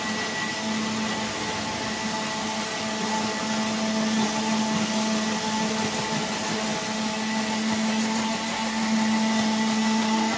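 Countertop jug blender running steadily at speed, its motor giving a constant hum with a hiss over it as it purées milk with dates, honey and olive oil.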